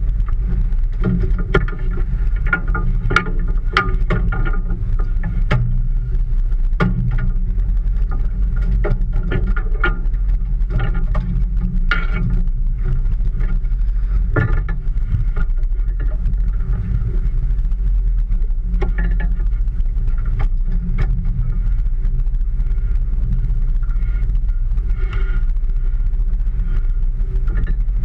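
Steady low hum of the boat's engine running, with scattered knocks and clicks of tackle and gear on the deck.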